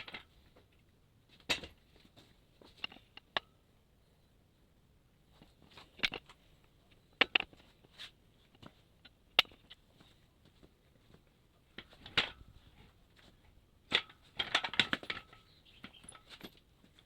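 Scattered sharp clinks and knocks of tools and metal engine parts being handled, with a quick flurry of clatter about two-thirds of the way in.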